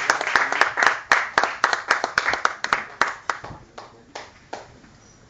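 Audience applause, with several hands clapping close by. It thins out after about three seconds to scattered claps and dies away.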